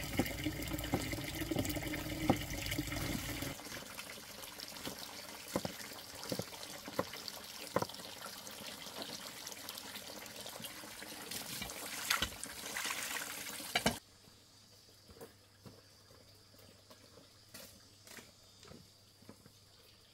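Water running and splashing, with scattered knocks and clicks of things being handled. The sound drops sharply about three and a half seconds in, then falls away abruptly near the end, leaving only faint clicks.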